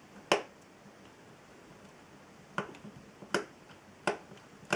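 Five short, sharp clicks at uneven spacing, from a flathead screwdriver working a stripped Torx screw that has had a slot cut into it.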